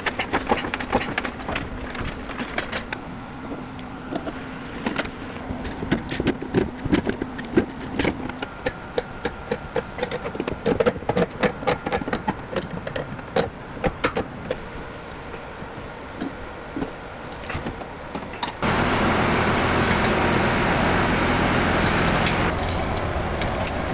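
Irregular metallic clinks and knocks of tools and fittings being handled during a water heater installation. About three-quarters of the way through, a loud, steady hiss starts suddenly.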